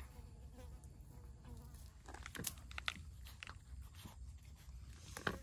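Cat chewing raw fish: a series of wet, crunching bites that starts about two seconds in, with the loudest bite near the end.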